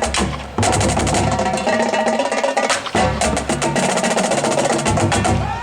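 Marching drumline playing a cadence: snare, tenor and bass drums in a fast, steady rhythm.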